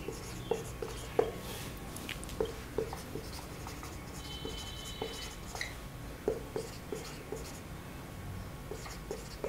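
Marker pen writing on a whiteboard: a scatter of short taps and scratchy strokes as words are written out, with a brief high tone about four seconds in.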